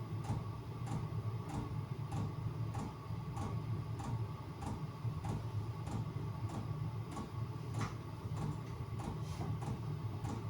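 Chinese diesel air heater running: a steady low fan hum with its fuel pump ticking evenly, about two to three clicks a second.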